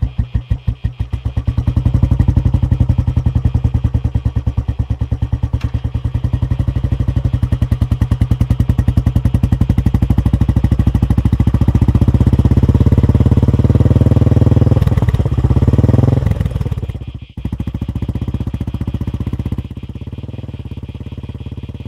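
Motorcycle engine with an even thumping idle that picks up into a louder, faster run, its pitch rising as the bike accelerates away. It cuts out briefly about seventeen seconds in and then runs on more quietly.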